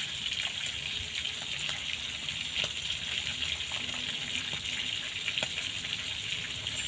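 A pan of meat cooking on a portable gas stove, with a steady hiss from the frying and the burner. Faint light ticks from a spoon stirring in the pan come now and then.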